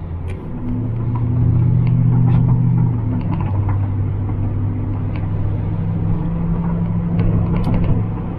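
Ford Crown Victoria P71 Police Interceptor's 4.6-litre V8 droning steadily, heard from inside the cabin while driving along. Its pitch steps up slightly about a second in and drops back a little around three seconds, with a few faint ticks from the cabin.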